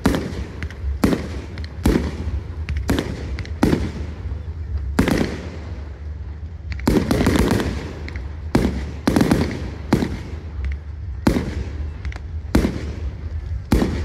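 Fireworks display: a steady run of sharp aerial shell bangs, about one a second, with a longer, rougher burst about seven seconds in.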